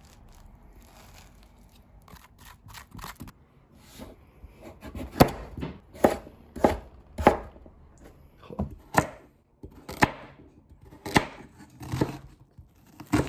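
A spoon scraping seeds out of a halved kabocha squash. From about five seconds in, a kitchen knife chops squash and then onion on a plastic cutting board, the blade knocking sharply on the board about once a second.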